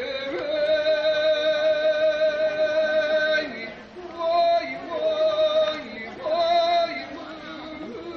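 A woman singing in a slow, chant-like way: one long held note for about three seconds, then a few shorter held notes.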